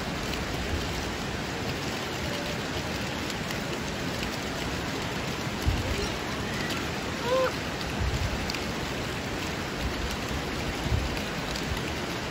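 Steady rushing hiss of running water, with a few soft low bumps. A short faint call rises and falls about seven seconds in.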